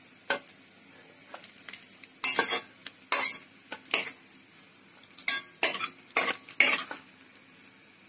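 Metal spatula scraping a metal wok and clinking on a plate in a string of short, sharp strokes as fried onion slices are lifted out of hot oil, over a faint sizzle.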